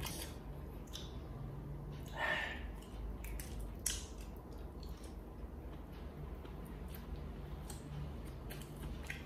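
Soft, close-miked chewing and wet mouth sounds of a person eating sliced sausage, with a few faint clicks.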